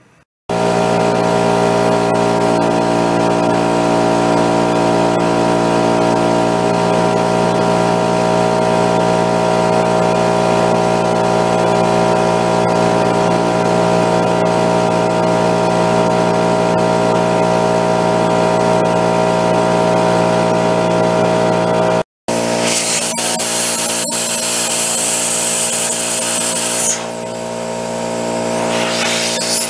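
Small 2-gallon oil-lubricated piston air compressor running steadily and loudly, pumping air through an inline oil/water separator into a reserve tank. A little past two-thirds through, a loud hiss of compressed air rushing through the hose fitting comes in over the running compressor, falls away briefly and rises again near the end.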